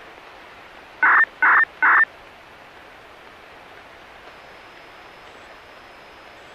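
Radio receiver tuned to a municipal disaster-prevention radio channel: three short electronic beeps about a second in, then a steady hiss of radio noise.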